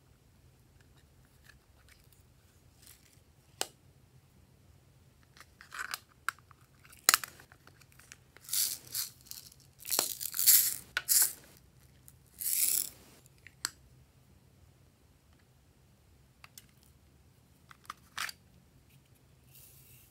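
Small plastic toy cases clicking as they are opened and handled, and tiny beads rattling as they are shaken out onto slime, in several short bursts in the middle.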